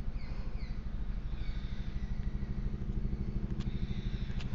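A steady low hum of a running motor, with a fast, even flutter to it.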